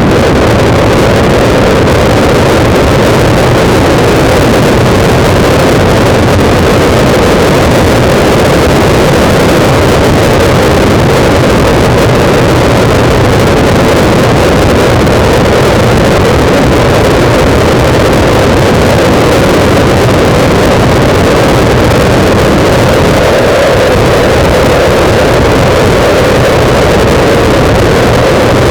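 Loud, steady wind buffeting the microphone of a camera mounted on a moving bike, with a low steady drone underneath.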